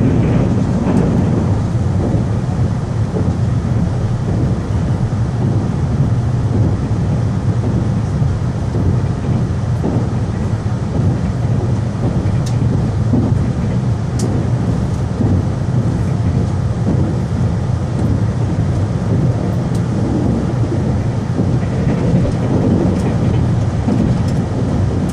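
Train running at speed, heard from inside the carriage: a steady low rumble of wheels on rails, with a few faint ticks.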